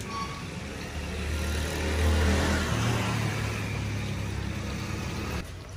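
An engine running, louder around two seconds in, over a steady rush of noise; it drops away sharply near the end.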